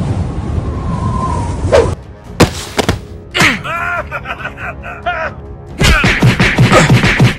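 Cartoon fight sound effects over background music: a rushing whoosh for the first two seconds, then a few hard hits, a character's drawn-out groans, and a rapid run of blows in the last second and a half.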